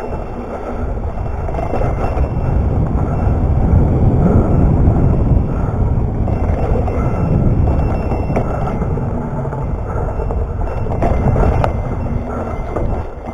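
Mountain bike riding a dirt trail: a steady low rumble of wind on the microphone mixed with tyre and bike noise, louder about four to five seconds in and again near the end.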